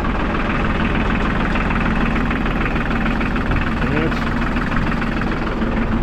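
New Holland TC33D compact tractor's diesel engine running steadily, just started on a newly fitted universal ignition switch.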